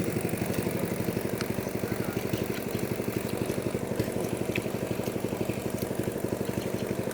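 Small engine running steadily at a fast, even beat.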